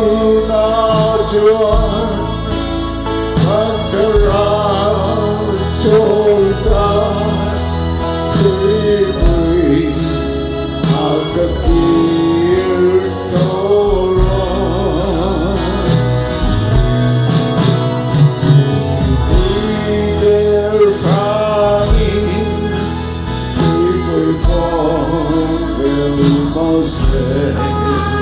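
A man singing a gospel song with vibrato, over instrumental accompaniment with a steady beat.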